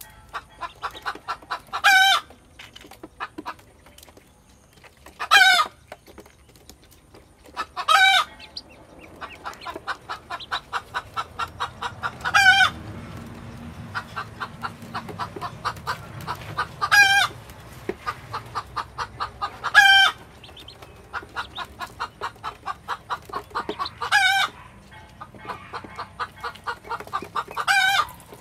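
Chicken clucking in a rapid run of short notes, with a louder, higher call about every three to four seconds.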